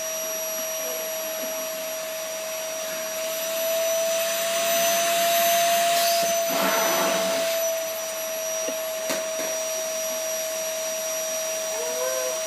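Vacuum cleaner running steadily, its motor whine held at one pitch over the suction rush. The rush swells louder for a few seconds in the middle, then settles back.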